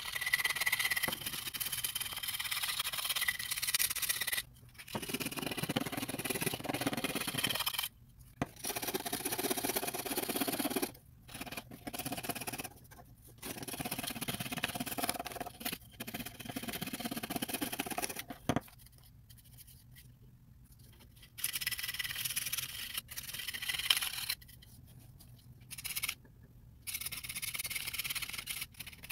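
A steel blade scraping the cosmoline-soaked wood of a Lee Enfield rifle stock, stripping the soiled surface down toward bare wood. The scraping comes in runs of rapid strokes a few seconds long, with short pauses between them.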